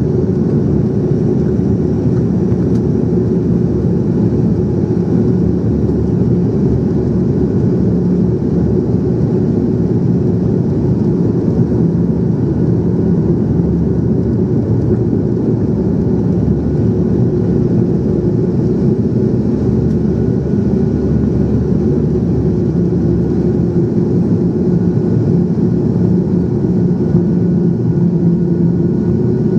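Steady drone of an airliner's engines and rushing air heard inside the passenger cabin during the approach, with a constant low hum.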